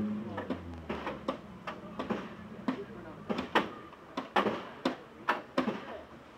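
Irregular sharp knocks and clicks, about two or three a second.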